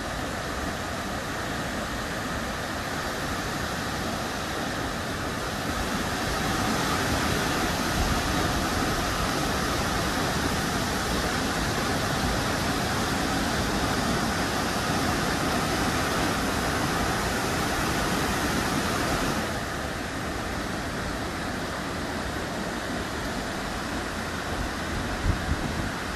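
A large waterfall running high with the water up, a steady rushing roar of falling water that grows louder from about six seconds in and eases back after about twenty seconds. A few brief knocks near the end.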